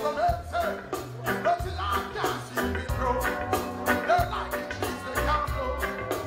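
Live reggae band playing, with a steady drum beat and bass guitar, and a male singer on a microphone over it.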